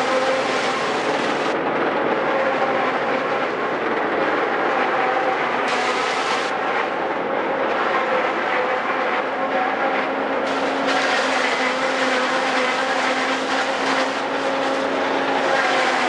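Tractor-drawn JF 92Z10 forage harvester running steadily as it chops maize and blows it into a trailer, a constant machine drone with steady hum tones. A hiss rides on top and drops out for a few seconds at a time.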